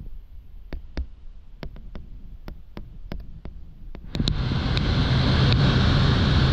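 Passenger-jet cabin noise: a low steady rumble with scattered light clicks. About four seconds in, a much louder rushing noise with a low hum sets in suddenly and holds.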